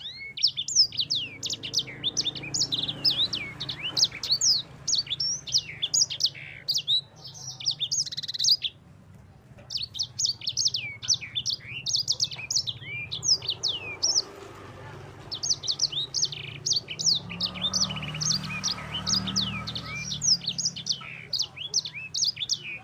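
A sanger, a Mozambique-type canary, singing a long, fast rolling song of rapid chirps and trills, broken by short pauses about nine and fifteen seconds in. A faint low hum lies underneath.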